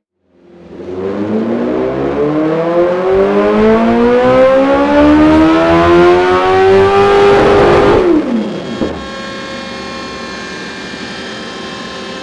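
BMW S1000R inline-four engine with a Dominator aftermarket exhaust, revving up through a full dyno pull, its pitch rising steadily and loudly. About two-thirds of the way through the throttle shuts and the revs fall away quickly.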